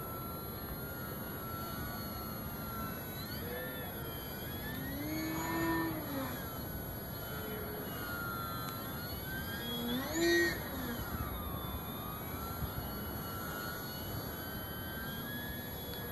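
Electric RC model airplane flying overhead: the AXI 2826/10 brushless motor and propeller whine, rising and falling in pitch, loudest twice, about five and ten seconds in, over a steady background hiss.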